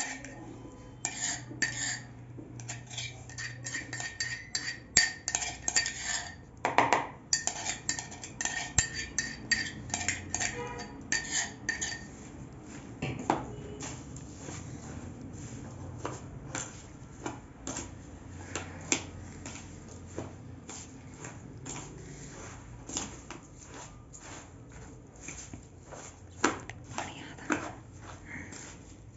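A metal spoon scraping and clinking against a small mortar and a plastic mixing bowl while chopped citrus fruit and herbs are scraped out and stirred. The clinks and scrapes come thick and fast with a faint ringing for roughly the first twelve seconds, then thin out to scattered taps as the stirring goes on.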